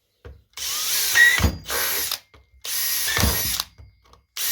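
Power drill running in four bursts of about a second each, with a high motor whine.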